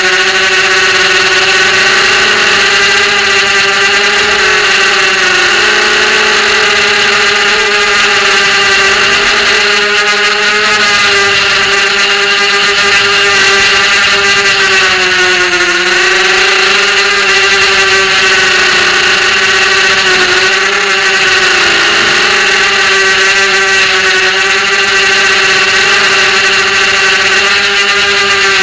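Brushless motors of an FPV racing quadcopter whining steadily at a high, even pitch, the pitch dipping briefly a few times as the throttle is eased.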